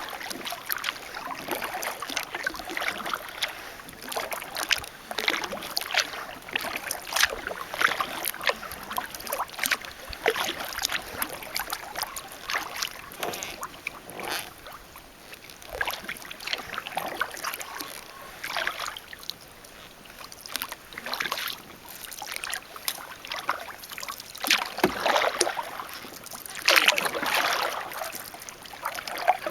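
Kayak paddle dipping and pulling through calm water, with splashes and drips from the blades in an irregular run of strokes; a few louder splashes come near the end.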